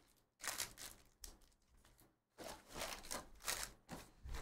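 A 2022 Panini Select football hobby box being opened and its foil-wrapped card packs pulled out and set down in stacks, in about four short bursts of rustling with quiet gaps between.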